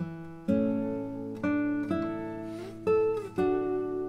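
Background music on an acoustic guitar: chords struck about once a second, each left to ring and fade before the next.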